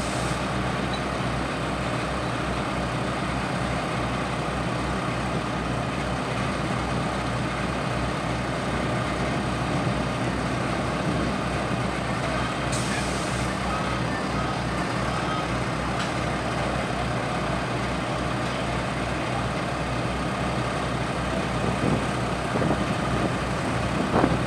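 Fire truck engine running steadily, powering its pump to move floodwater. A brief hiss about thirteen seconds in.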